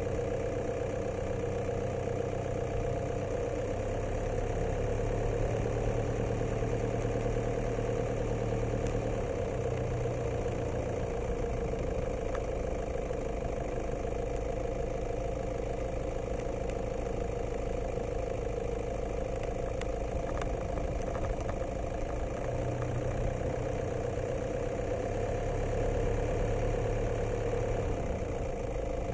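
A vehicle engine running steadily at an even, low speed, with a constant hum that swells slightly twice.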